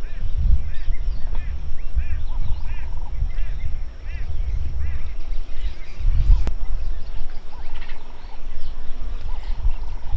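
Wild birds calling steadily, with many short, repeated chirping notes and now and then a quick trill, over a low, uneven rumble. There is one sharp click about six and a half seconds in.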